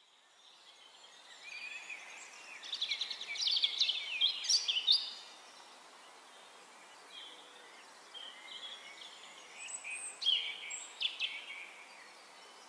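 Songbirds singing over a steady outdoor hiss: a run of rapid chirps and trills from about a second and a half in to about five seconds, then scattered quieter calls, and another burst of short chirps around ten seconds in.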